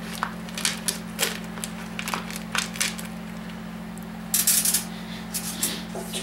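Small steel valve-train parts (springs, retainers and keepers) clinking and rattling as a hand digs through a plastic parts bin and sets them down on the workbench: a string of sharp clicks, with a louder burst of rattling about four and a half seconds in. A steady low hum runs underneath.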